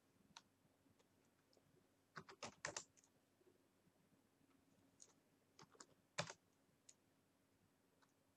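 Scattered clicks of a computer keyboard: a quick run of keystrokes about two seconds in and another around five to six seconds, the loudest just after six seconds, over near-silent room tone.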